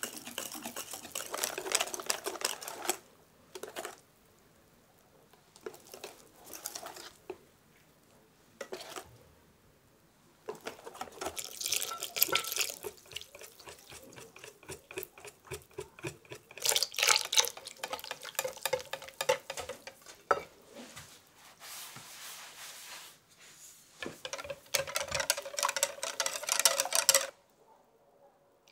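Wire whisk beating crepe batter in a glass bowl, with wet batter sloshing and quick clicks of the wires against the glass. It comes in several bouts with short quiet pauses between.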